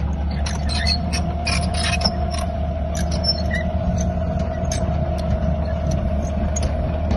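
Drilling rig's engine running steadily, with a constant whine over it and repeated sharp creaks and clicks from the rig, most frequent in the first few seconds.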